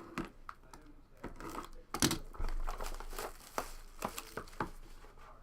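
Packaging of a sealed hockey trading-card box crinkling and tearing as it is opened by hand, with irregular rustles and sharp clicks, the loudest about two seconds in.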